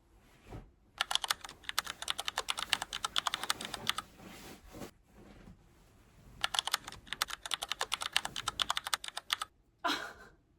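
Typing on a computer keyboard: two runs of rapid key clicks about three seconds each, with a short pause between them. A brief soft sound comes near the end.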